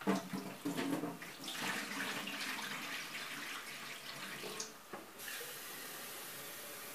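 Water being poured off a jar of fermented tomato seeds, splashing and gurgling for about five seconds: the dirty top layer of skins, pulp and floating seeds is being tipped away while washing the seeds. It then gives way to a steady even hiss.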